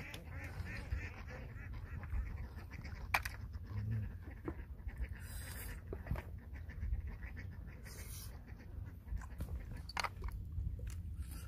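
Wind rumbling on the microphone. Waterfowl call faintly and fade out about a second in, and a few small clicks come as cooked snail shells are handled.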